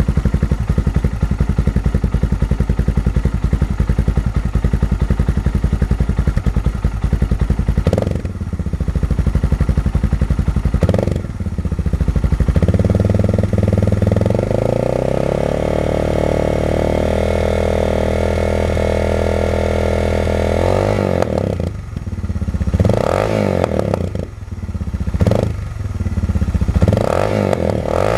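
Suzuki DR650 single-cylinder four-stroke engine with an FMF Powercore exhaust, revved on the stand. It idles steadily, gets two short blips of the throttle about eight and eleven seconds in, is held at raised revs for about eight seconds, then drops back and is blipped three more times near the end.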